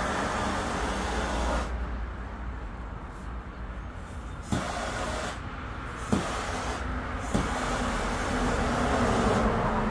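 Handheld gas torch flame hissing as it scorches plywood. The hiss stops about two seconds in, three sharp clicks follow, and the flame hiss comes back near the end.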